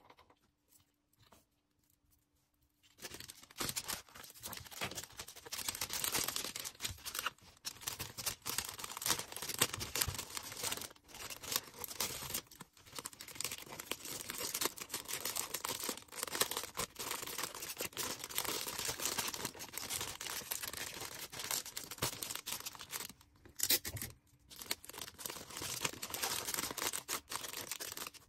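Packing material being handled, crinkling and tearing continuously as an order is wrapped, a dense crackle full of small clicks. It begins about three seconds in and breaks off briefly a few times.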